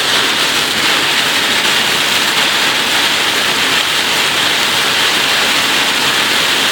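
Torrential rain coming down in sheets on a car, heard from inside the cabin: a loud, steady hiss.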